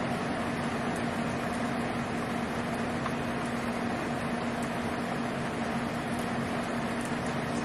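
A steady hum with a low tone over an even hiss, unchanging throughout, like a fan or air-conditioning unit running; no thunderclap.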